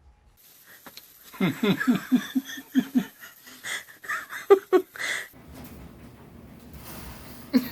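A person laughing in a quick run of short, repeated bursts, followed by a few higher-pitched bursts.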